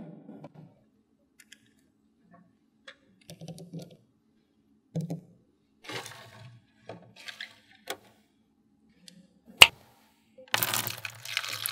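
Small magnetic balls clicking and clacking together in scattered, irregular snaps, with one sharp loud snap a little before the end. Near the end a dense, noisy sound begins.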